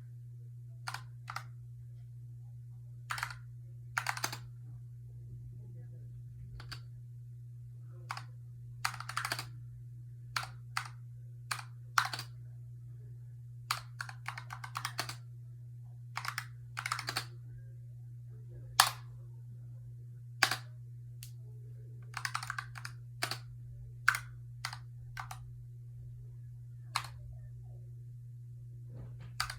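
Typing on a Razer Huntsman Tournament Edition keyboard with linear optical switches: slow, uneven keystroke clicks, single or in short runs, with pauses of a second or two between them. A steady low hum runs underneath.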